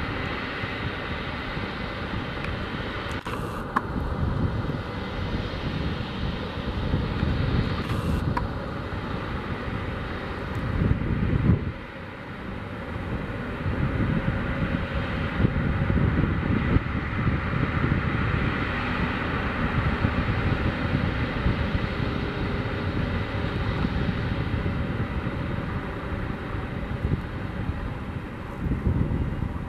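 Airbus A220-300's Pratt & Whitney PW1500G geared turbofans running at low taxi power, a steady jet hiss with a faint whine, as the airliner taxis past and turns away. Uneven low rumbling of wind on the microphone swells and dips over it.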